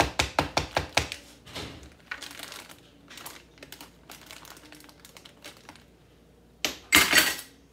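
Plastic bag crinkling and rustling as food is pushed and packed into it, in quick bursts at first and then scattered, with a louder stretch of crinkling near the end.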